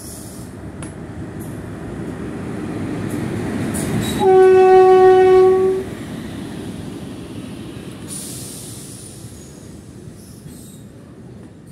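Electric locomotive hauling a container freight train passing close by. The rumble of the train builds, the locomotive sounds one long horn blast about four seconds in, and the wagons rumble on past, slowly fading.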